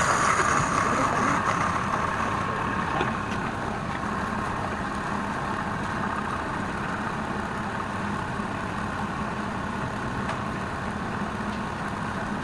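Wood lathe running steadily with a constant hum, a little louder and brighter for the first few seconds before settling.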